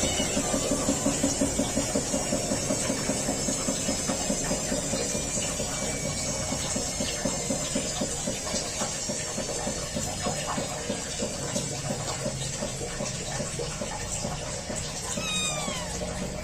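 Three-week-old kittens: a steady, rhythmic low sound throughout, with faint high chirps and one clear meow falling in pitch near the end.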